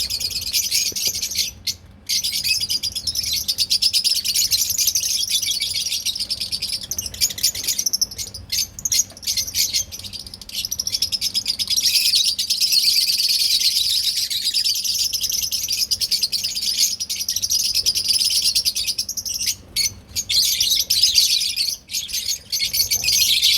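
A group of small pet parrots chattering together: dense, continuous high-pitched chirping and twittering, with a few brief lulls.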